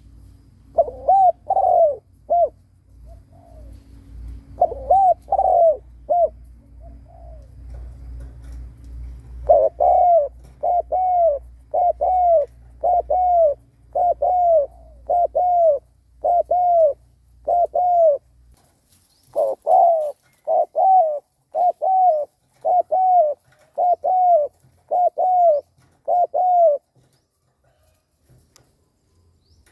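Decoy spotted dove bow-cooing: short, identical coos repeated about twice a second in runs with brief pauses, the fast excited call used to provoke wild doves. A low rumble underneath stops about two-thirds of the way through.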